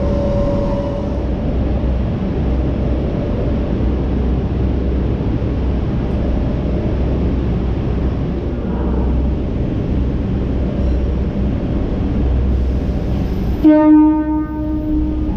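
Vintage 1927 'red rattler' electric train running through an underground station: a steady, loud rumble of wheels and motors. Near the end the rumble cuts off abruptly and the train's horn sounds once for about a second and a half.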